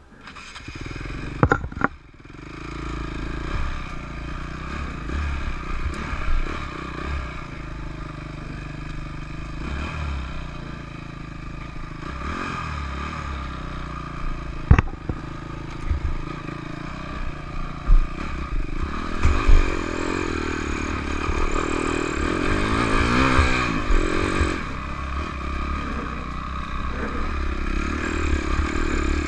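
Dirt bike engine coming up from quiet near the start, then running and revving as the bike rides a rough dirt trail. Sharp knocks and clatter from the bike over bumps come through a few times, and the engine is pushed harder for several seconds past the middle.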